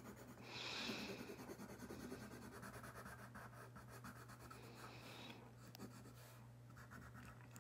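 Faint scratching of a yellow coloured pencil shading on paper, strongest in the first couple of seconds and then thinning out.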